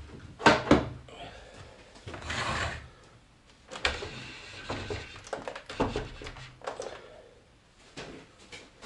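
Handling noise of a computer monitor, its cables and a keyboard being moved about on a desk: a run of knocks and clicks, with a longer scraping rustle about two seconds in.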